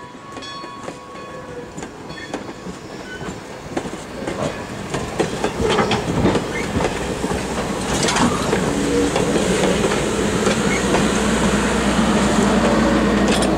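Passenger coaches of a steam excursion train rolling past close by, their wheels clattering over the rail joints and growing louder about four seconds in as the cars go by. A faint steam whistle from the locomotive up ahead sounds in the first two seconds.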